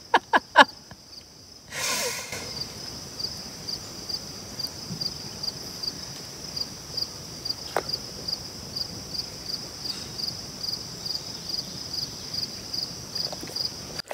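An insect chirping steadily in a high, even rhythm of about two chirps a second, starting about two seconds in. A few sharp clicks come in the first second, and a brief rustle just before the chirping starts.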